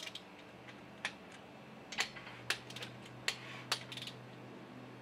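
A ratchet wrench clicking as the Chevy 350 small-block's crankshaft is turned over by hand with its new pistons in. There are about five sharp metallic clicks at irregular spacing over a steady low hum.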